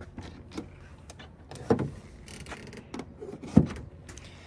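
A Tesla Supercharger connector being plugged into a Tesla Model Y's charge port. The port door opens, and a few short clicks and knocks follow, the loudest about three and a half seconds in as the plug seats in the port.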